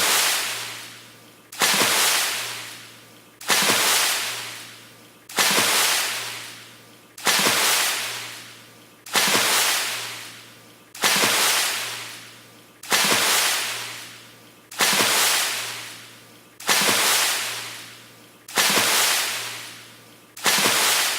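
A fast water splash, repeated at even spacing about every two seconds, each one starting suddenly and fading out over about a second and a half.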